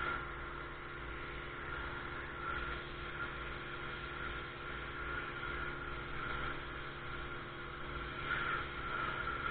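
Ryobi RY14122 electric pressure washer running steadily while spraying: a constant motor-and-pump hum under the hiss of the water jet, the hiss swelling now and then.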